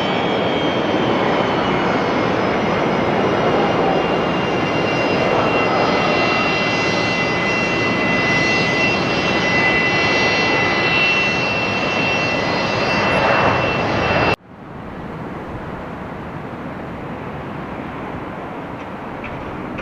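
Airplane engines running with a loud, steady rush and a high, steady whine. About two-thirds of the way through, the sound cuts off abruptly and gives way to a quieter, steady rumbling noise.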